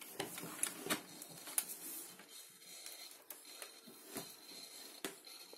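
Faint scattered clicks and light rustling from the Vega-323 radiogram's turntable while the tonearm is handled and cued over the spinning record.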